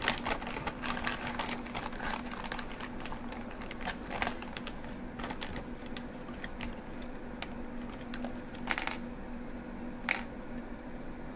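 Small plastic parts clicking and rattling against each other as a hand rummages through them in a plastic zip-lock bag, with some crinkling of the bag. The clicks come thick and fast for the first few seconds, then thin out to scattered knocks as pieces are taken out and set down.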